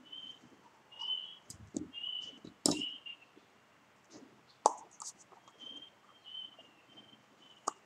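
Hand-crafting sounds: scissors snipping at a roll of double-sided tape, then a few sharp clicks and knocks as the scissors and tape are handled and the tape is peeled and pressed onto a paper cup. Short high chirps, like a small bird's, repeat in the background.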